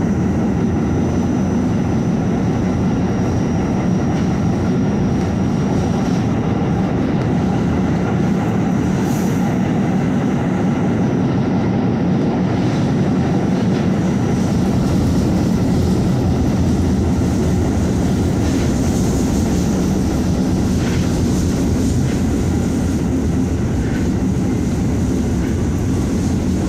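Staten Island Railway R44 subway car running at speed, heard from inside: a steady rumble of wheels on rail with a few faint clicks.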